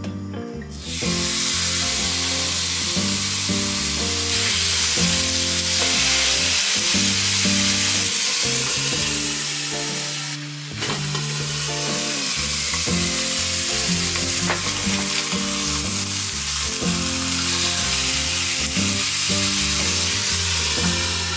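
Beef steaks sizzling as they sear in a hot double-sided frying pan. The frying hiss starts about a second in and dips briefly about halfway, with light background music underneath.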